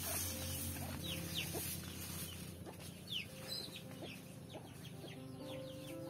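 Chickens clucking, with many short, high, falling chirps repeating through most of the clip.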